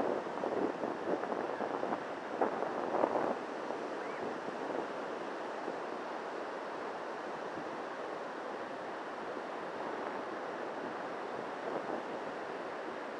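Surf breaking on a sandy beach, a steady rushing wash, with wind on the microphone that comes in louder gusts during the first three seconds.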